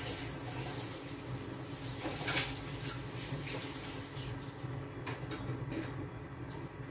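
Covered stainless-steel pot of curry with water heating on an induction cooktop, giving a steady watery hiss, not yet at the boil, over a low steady hum. A brief louder hiss comes about two seconds in, and a few faint ticks near the end.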